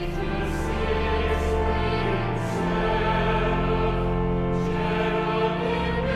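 Sacred choral music: a choir singing slow, held chords over a sustained bass, the low note changing a couple of times.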